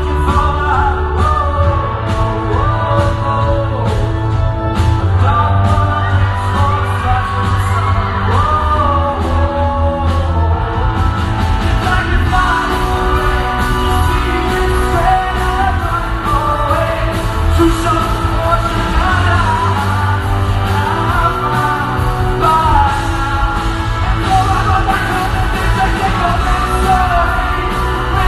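A live rock band with a male lead singer, playing to a steady drum beat in a large concert hall.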